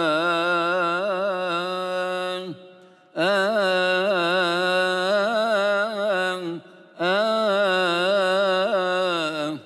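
Solo male cantor chanting a Coptic Good Friday hymn, long held notes with wavering ornaments, in three phrases with short breaks for breath about two and a half and six and a half seconds in.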